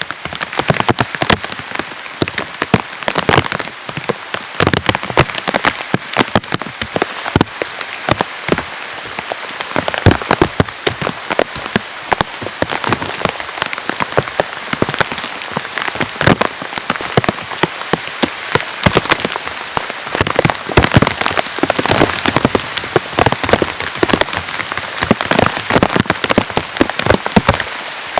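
Heavy rain falling steadily, with many loud individual drops striking close by at irregular moments.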